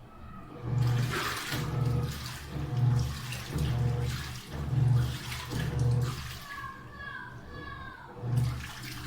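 LG washing machine running after being switched on, with water rushing into it and a low pulsing hum that comes about once a second. It starts about a second in. The machine runs with its door open and no door error, because a magnet now fools the door sensor.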